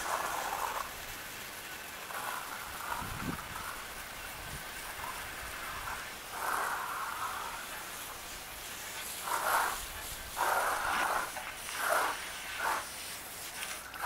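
Water spraying from a garden hose nozzle onto the steel blade of a long-handled concrete float to wash off the concrete, a steady hiss that swells louder several times, most often in the second half, as the jet plays over the metal.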